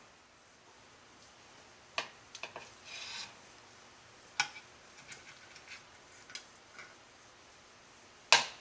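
Scattered clicks and light scrapes of a metal serving spoon and tongs against a glass baking dish and plate, as baked stuffed tomatoes are lifted out. The sharpest clink comes near the end.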